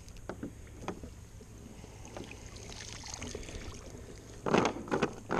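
Cast net being hauled up out of the water beside a kayak: faint drips and small splashes, then a burst of louder knocks and rustles about four and a half seconds in as the net comes aboard with small bait fish.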